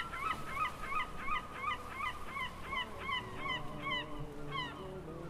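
A gull calling: a fast run of repeated yelping calls, about four a second, that fades out near the end. Low held music tones come in under the last part.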